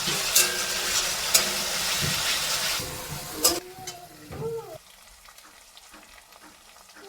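Food sizzling in hot oil in a pan, with the sharp clicks and scrapes of a spoon stirring against the pan. About three and a half seconds in, the sizzle drops away and it goes much quieter.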